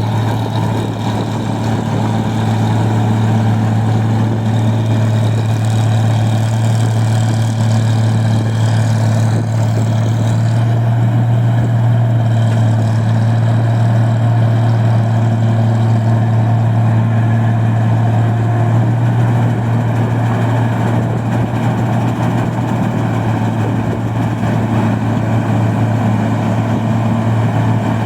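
Engine of a rice-milling machine running steadily at constant speed, a loud, even, low hum.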